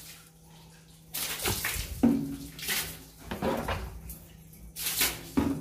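Cleaning liquid thrown by hand onto a boat's engine and wooden engine-room timbers: four or five wet splashes about a second apart, wetting the grime so it soaks before scrubbing. A faint steady low hum runs underneath.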